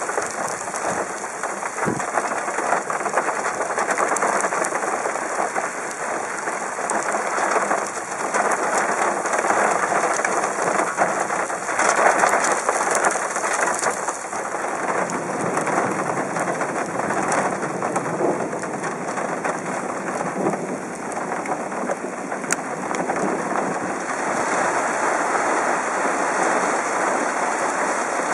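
Thunderstorm rain and wind: a dense, steady hiss that swells and eases in gusts every few seconds, with a few sharp clicks.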